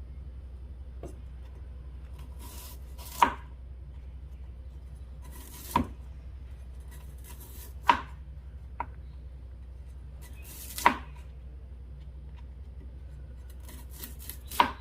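Knife knocking sharply on a cutting board while water chestnuts are peeled, about six separate strikes a couple of seconds apart over a faint steady hum.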